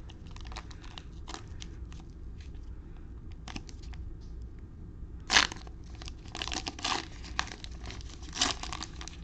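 Plastic cellophane wrappers of trading-card cello packs being torn open and crinkled: faint scattered crackles, a sharp tear about five seconds in, then bursts of crinkling.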